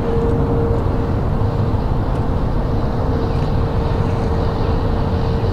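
Boat motor running steadily: a low rumble with one steady hum through it.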